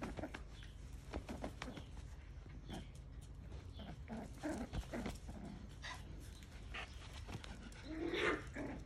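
Miniature schnauzer puppy making short, soft play noises as it bites and tugs at a trouser leg, with a louder one near the end.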